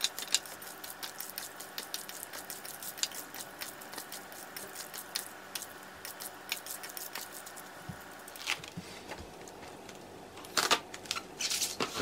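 Hands mixing sliced raw beef in marinade in a ceramic bowl, with frequent small clicks of fingernails against the bowl. Near the end, louder crinkling as plastic cling wrap is stretched over the bowl.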